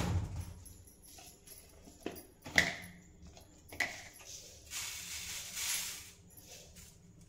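Cumin seeds poured from a plastic jar into a round tin, a rustling hiss lasting about a second and a half past the middle. Before it come a thump and a few sharp clicks and knocks as the tin is set down and the jar handled, the loudest click about two and a half seconds in.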